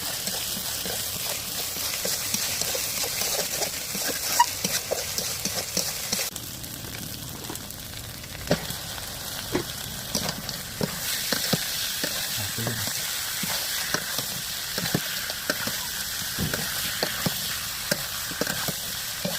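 Food sizzling in hot oil in a cooking pan while a metal spoon or spatula stirs it, scraping and knocking against the pan. The sizzle dies down about six seconds in and comes back louder about five seconds later.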